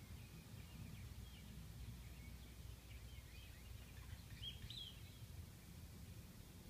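Faint, high, short bird peeps and chirps scattered through, with a brighter pair about four and a half seconds in, over a steady low rumble of wind or outdoor noise.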